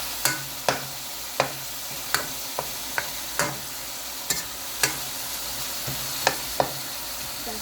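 Pieces of beef sizzling in a hot wok: a steady frying hiss with sharp, irregular clicks about every half second.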